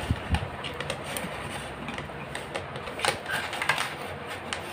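Flat steel fish tape being uncoiled by hand from its coil: scattered light clicks and rattles, a few every second.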